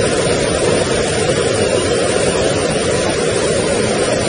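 Floodwater rushing down a street in a fast, muddy torrent: a steady, loud rush of water with no breaks.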